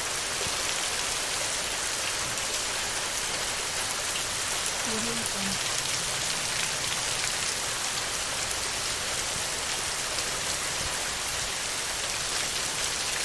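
Heavy rain falling steadily on a tin roof: an even, dense hiss of many drops with fine patters through it.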